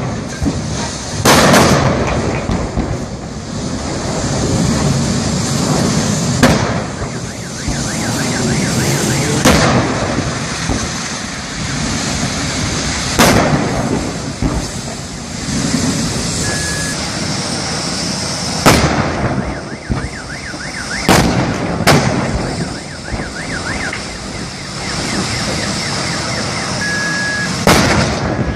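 Gas cylinders on a burning truck exploding one after another: about eight loud booms at irregular intervals, with continuous noise between the blasts.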